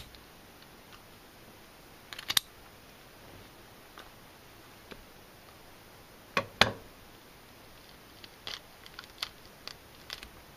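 Kitchen shears snipping into a tilefish's belly to open it for gutting. Short, sharp snips come spaced out: a few about two seconds in, the loudest pair around six and a half seconds, then several lighter clicks near the end.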